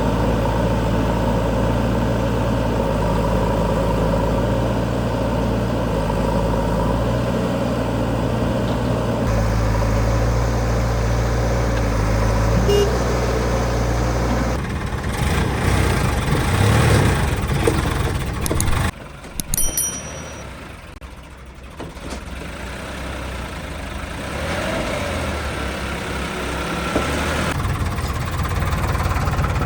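Heavy diesel machinery engine running with a steady low hum. About halfway through it turns rougher and more uneven, drops much quieter for a few seconds, then builds up again near the end.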